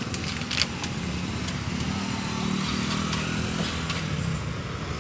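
Street traffic: motorbike and scooter engines running as they pass, with a low engine drone that builds about a second and a half in and fades near the end.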